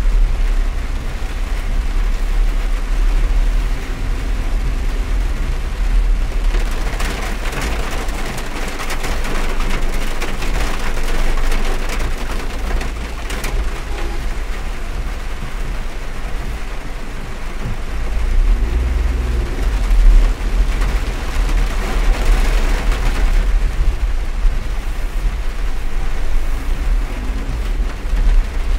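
Heavy rain drumming on a moving car's roof and windows, heard from inside the cabin over a steady low rumble of the car. The rain swells louder twice, for several seconds about a quarter of the way in and again about three quarters through.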